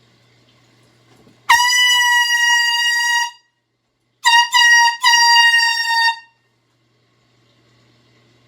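Handheld air horn blasting a single high, steady note: one long blast of about two seconds, then two quick short toots and a second long blast.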